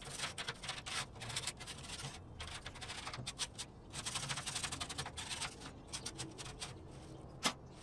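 Ash and charcoal debris being scraped out of the steel cooking chamber of a Brinkmann Trailmaster offset smoker, a run of irregular scratchy strokes with a sharp click near the end.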